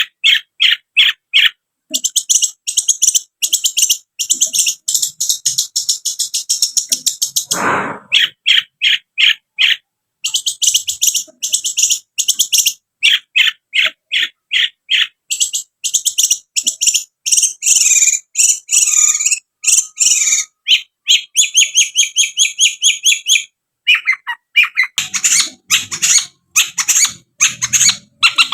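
Long-tailed shrike (cendet) singing a fast, chattering song: long runs of rapid repeated high notes broken by short pauses, with one sharp downward-sweeping note about eight seconds in.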